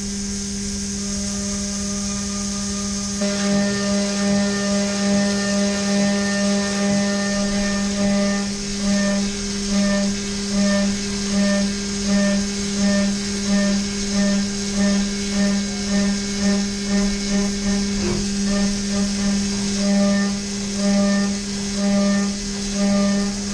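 Haas VF-3 CNC vertical mill roughing at high feed with an IMCO end mill: a steady spindle hum and high whine. From about three seconds in, the cutting tone swells and fades in a regular pulse about once a second as the cutter loads into the part.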